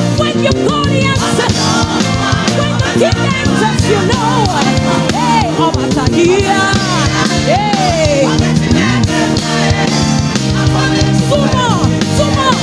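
Live praise-and-worship band music with a steady groove of drums and instruments, with voices singing over it.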